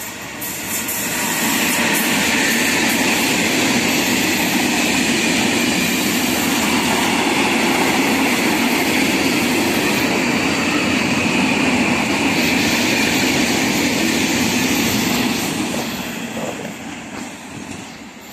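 A freight train of tank wagons, hauled by an electric locomotive, passing close by at speed with its rolling rumble and wheel noise. The noise builds over the first couple of seconds, holds steady while the wagons go by, then fades from about 15 seconds in as the last wagons pass.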